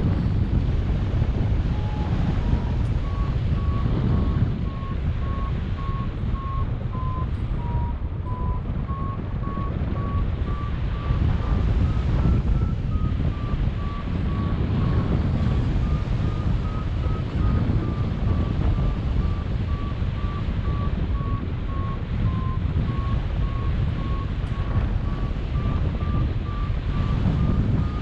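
Wind rushing over the microphone in flight, with a flight variometer beeping about once or twice a second at a high tone that drifts slightly up and down. A beeping variometer is the sign of climbing in a thermal.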